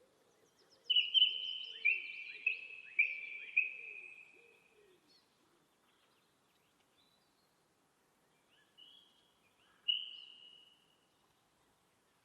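A bird calling outdoors: a quick run of about six short whistled notes in the first few seconds, each starting sharply and trailing off, then two more calls near the end, over faint background noise.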